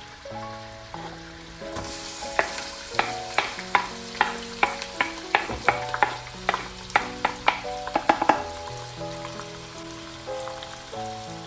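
Food sizzling in a hot pan while a utensil stirs it, knocking sharply against the pan about three times a second for several seconds, over background music.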